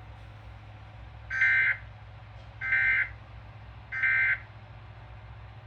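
Emergency Alert System end-of-message (EOM) data bursts: three short, harsh two-tone warbles of SAME digital code, about a second and a quarter apart, closing the flash flood warning broadcast. A steady low hum runs underneath.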